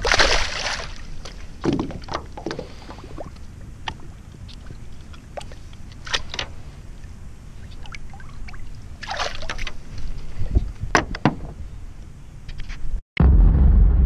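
Water splashing and sloshing as a hand-held redfish is lowered into the water and released, with the loudest splash right at the start and a few more bursts of splashing later on. About a second before the end, a sudden loud deep boom begins: a logo sound effect.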